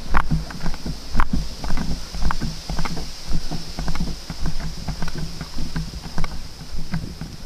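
Irregular knocks and clicks from a kayak and gear being carried on foot along a paved lane, several a second with the walking, over a steady low rumble of handling or wind on the microphone.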